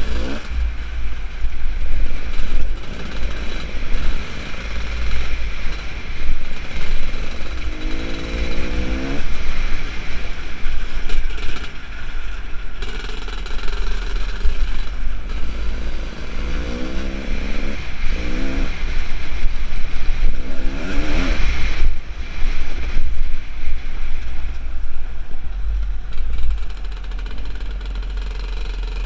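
Dirt bike engine running on a rough track, its revs rising and falling in several sweeps, about eight seconds in, around seventeen seconds and again around twenty-one seconds, over a heavy rumble of wind on the helmet-mounted microphone.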